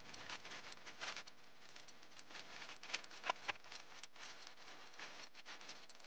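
Faint, rapid little clicks and scrapes of a kitchen knife peeling a Beni Azuma sweet potato thickly, fast-forwarded, with a few slightly louder ticks about three seconds in.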